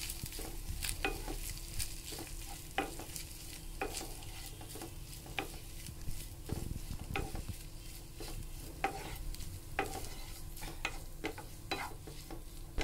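A wooden spatula stirring shredded chicken in a non-stick frying pan over a steady sizzle of hot oil, with irregular light knocks and scrapes of the spatula against the pan.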